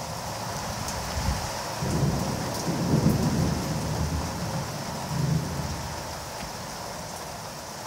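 Heavy rain falling steadily, with a long roll of thunder that builds about two seconds in, peaks around three seconds, swells once more near five and dies away by about six.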